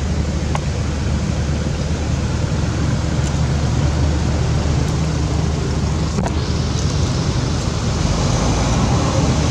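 Steady outdoor rumble and hiss, with the low rumble strongest.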